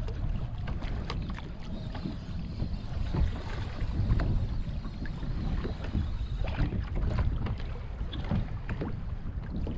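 Wind buffeting the microphone, with water lapping and ticking against the hull of a fishing kayak in scattered small splashes.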